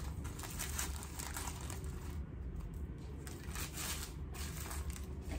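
Deli paper wrapping being peeled and crinkled off a chopped cheese sandwich: a run of irregular paper rustles and crackles.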